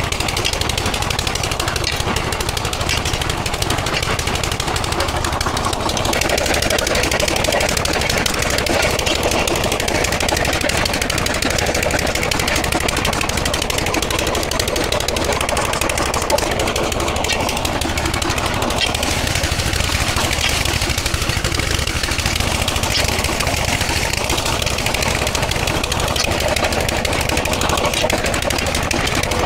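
Stone-crushing machinery running with a continuous, rapid rattle that does not let up.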